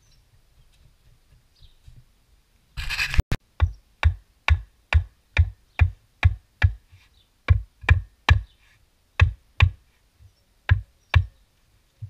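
Rubber mallet striking a concrete lawn-edging kerb: a run of sharp knocks, about two to three a second, tapping the kerb down onto its fresh footing, after a brief rough scrape as the kerb is set in place.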